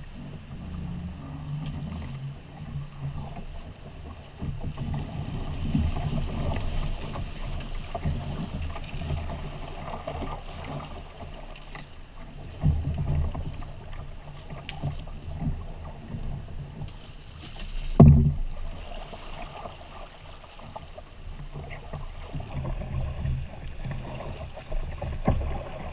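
Fast, silty floodwater rushing and splashing around a canoe as it is poled downstream through riffles, in uneven swells with a low rumble. A single sharp knock sounds about eighteen seconds in.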